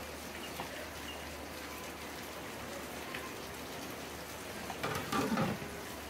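Hot water dripping and splashing as a quail is dunked in and lifted out of a steaming pot of scalding water, the step that loosens its feathers for plucking. About five seconds in there is a louder wet clatter.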